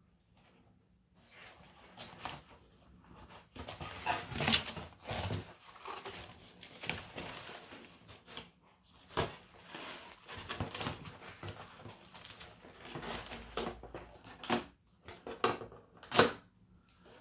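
Cardboard mailer box being opened and its contents handled: irregular rustling, scraping and tearing of cardboard and packing, with a few sharp knocks.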